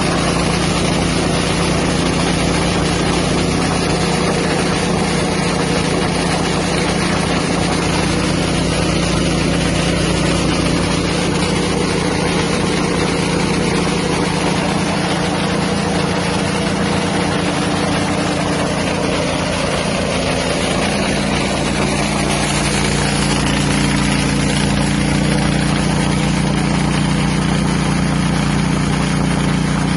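Small engine-driven rice huller running steadily, a continuous engine-and-machine hum with a slight shift in its low tone about two-thirds of the way through.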